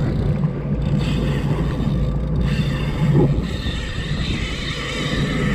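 Fishing reel's drag buzzing as a hooked Spanish mackerel runs and strips line, over the steady hum of the jet ski's engine. The drag sound comes in about a second in and grows stronger about halfway.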